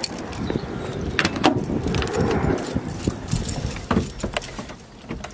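Keys jangling, with scattered clicks and knocks; the engine is not yet running.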